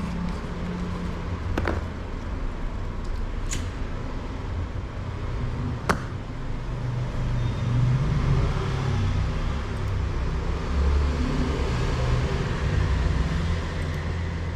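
Low, uneven rumble of motor-vehicle traffic, with three sharp clicks about 1.5, 3.5 and 6 seconds in.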